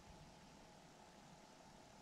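Near silence: only a faint, steady background hiss.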